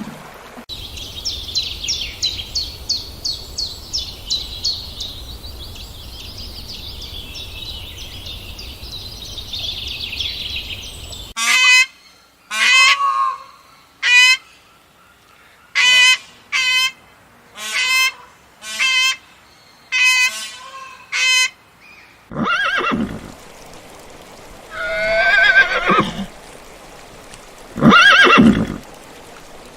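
A run of different animal calls one after another: first a long stretch of high, rapid chirping trills, then about ten short separate calls, then a few longer calls near the end.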